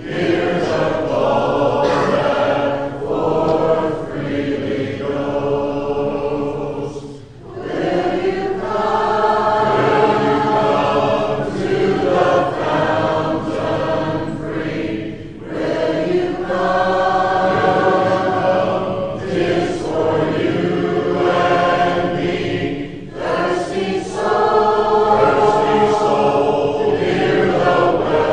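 Church congregation singing a hymn in parts without instruments, in long sustained phrases with short breaths between them.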